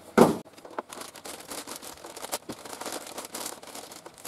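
Plastic packaging rustling and crinkling as a table saw's mitre gauge is taken out and unwrapped, with irregular crackles for about three seconds. A single thump comes right at the start.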